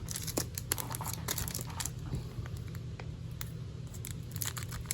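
Foil booster-pack wrapper crinkling and trading cards being handled, a run of small crackles and clicks.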